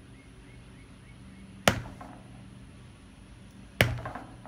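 Two sharp whacks, about two seconds apart, of a small metal meat-tenderizer mallet striking a whole watermelon.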